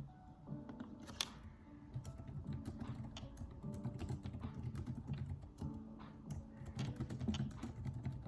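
Typing on a computer keyboard: quick runs of soft key clicks, sparse at first and denser from about two seconds in, with one sharper click early on.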